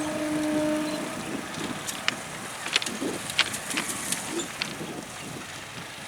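Electric multiple unit local train running past and moving away. A steady tone stops about a second in, then comes a run of sharp clicks and rattles from the running train, growing quieter.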